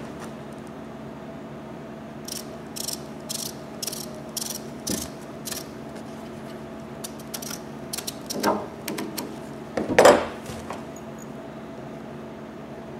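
Scissors snipping through polyester aircraft covering fabric: a run of short, crisp cuts about two a second, then a few more. Two louder knocks come near the end.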